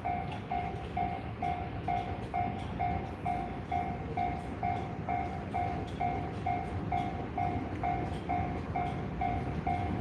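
Japanese railway level-crossing warning bell ringing in an even pulse of about three strokes a second, with a train running past the crossing.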